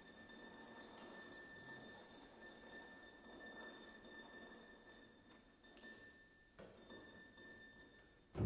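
Very soft passage of contemporary chamber music for flute, clarinet, bassoon, horn, piano, violin and cello: a faint high tone held steadily over a quiet, hissing texture, then a sudden loud low attack at the very end.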